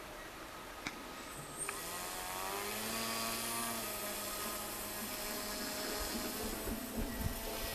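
Small electric motor of a radio-controlled model sled whining as it is throttled up about a second and a half in, its pitch climbing and then wavering as it drives the sled across the snow. A couple of light clicks come before it.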